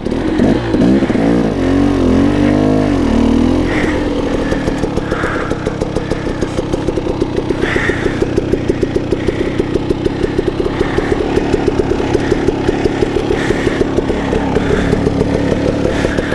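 2016 KTM 300 XC-W single-cylinder two-stroke dirt bike engine, revved up and down for the first few seconds, then running steadily at low revs.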